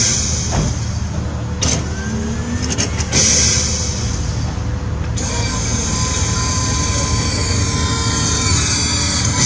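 Letrons transforming robot car built from a BMW 3 Series coupé, running with a steady low hum as it transforms. Several bursts of hissing come in the first half.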